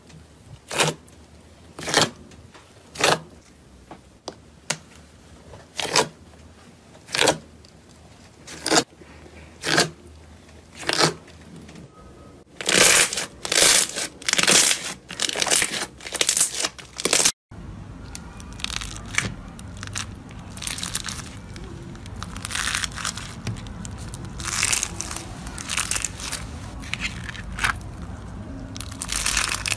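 Hands pressing and folding thick glossy slime, giving sharp sticky pops about once a second, then a louder, denser run of crackling pops. After a sudden cut, hands squeeze and twist stiff plastic-mesh scrub sponges with a crinkly crunching over a steady low hum.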